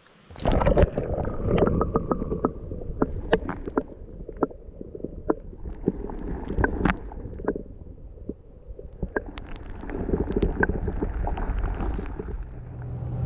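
Underwater sound heard through a submerged camera: a muffled, steady low rumble of moving water, with many short clicks and pops scattered through it.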